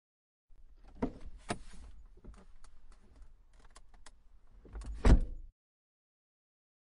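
A series of sharp clicks and knocks over light rustling, with one much louder knock about five seconds in, then it cuts off suddenly.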